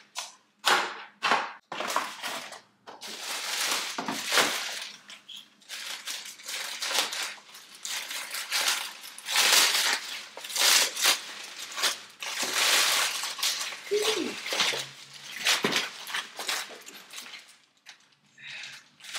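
Packaging being handled and opened: irregular crinkling and rustling, with sharp clicks and knocks.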